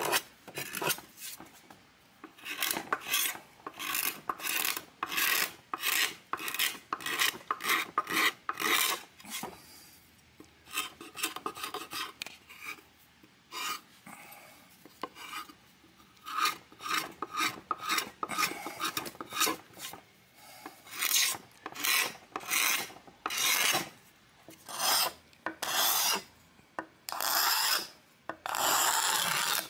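Steel hand scraper scraping old black paint off a Gibson SG's mahogany body and neck. Repeated short rasping strokes, about one or two a second, thinning out for a few seconds in the middle.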